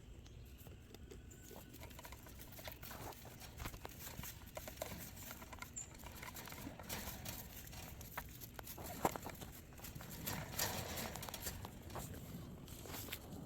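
Goats moving about in hay: faint rustling with scattered clicks and light knocks, one sharper knock about nine seconds in.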